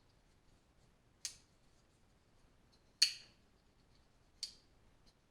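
Civivi Banter liner-lock folding knife being opened and closed by hand: three sharp metallic clicks about a second and a half apart, each ringing briefly, as the blade swings on its bearing pivot and snaps into place.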